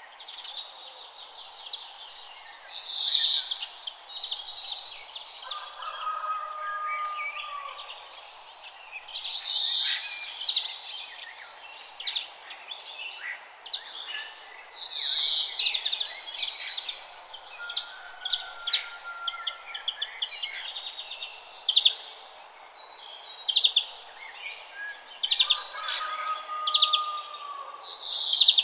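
Morning birdsong: songbirds chirping and trilling, with a loud falling phrase that comes back about every six seconds, over a steady background hiss.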